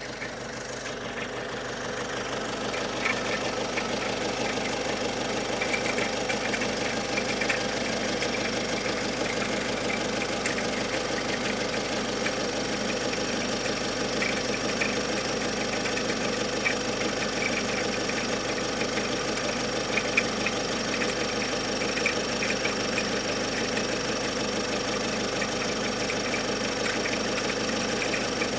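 Great Wall Hover H5 diesel engine running at a steady speed, with a light rapid knocking that comes in patches and fades again. The knock comes and goes on its own and does not follow engine revs.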